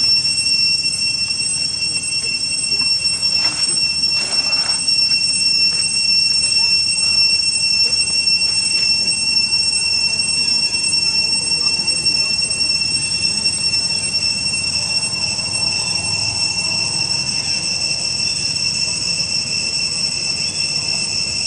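A steady, high-pitched whine that holds one pitch and never changes, over a low background rumble, with a few faint short sounds a few seconds in.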